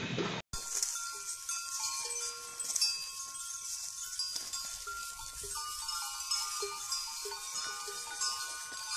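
A brief snatch of music cuts off, then bells on a herd of browsing goats ring and clank irregularly, several overlapping tones, over a steady high hiss.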